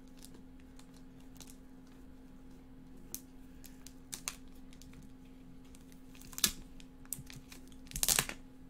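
A few scattered light clicks and taps, with a louder, brief rustling burst about eight seconds in, over a faint steady electrical hum.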